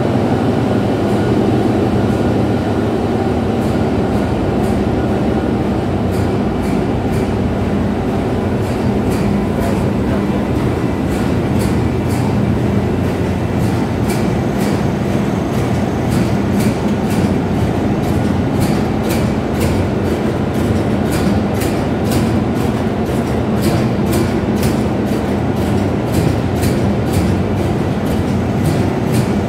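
Ship's engine-room machinery running: a loud, steady drone with a constant hum. Faint rapid clicking rides on top from a few seconds in.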